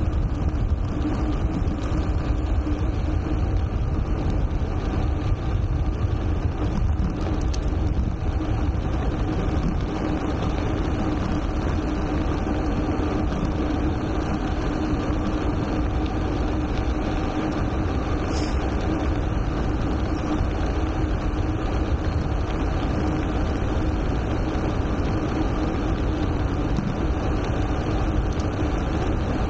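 Gravel road bike riding downhill: steady wind rush on the camera microphone over tyre and road rumble, with a steady low hum.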